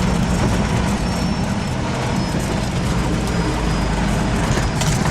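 Diesel vehicle running in a low transport gear while driving slowly over a potholed forest road, a steady low engine drone.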